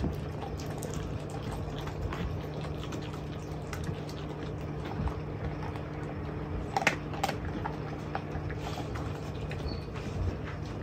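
Mastiff puppies licking and chewing at raw chicken scraps, making wet smacking sounds and scattered small clicks, with a couple of louder clicks about seven seconds in. A steady low hum runs underneath.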